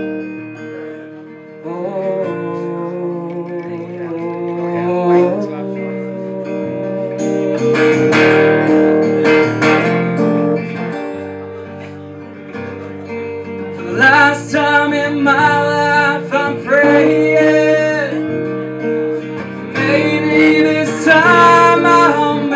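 Live folk song on a steadily played acoustic guitar, with a man's voice singing in stretches over it, about halfway through and again near the end.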